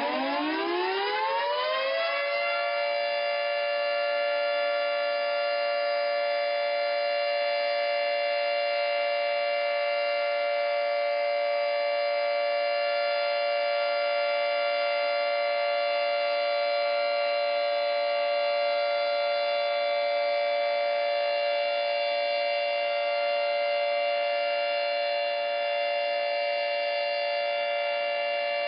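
Air-raid / tornado warning siren winding up, its pitch rising over the first two seconds or so, then holding a steady, sustained wail.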